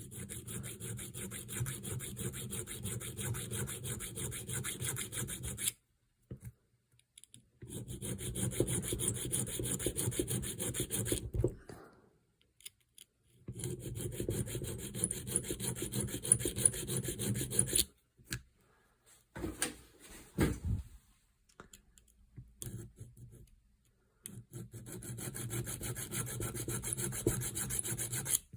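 A tool scraping across a small steel screw head, recutting its burred-over slot. It comes in four runs of several seconds each, with pauses and a few short strokes in between.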